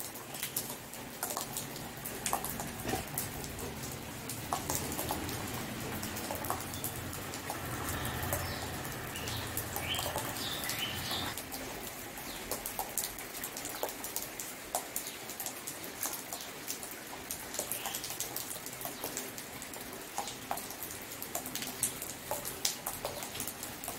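Steady rain, with a dense patter of individual drops and drips. A bird chirps a few times about halfway through.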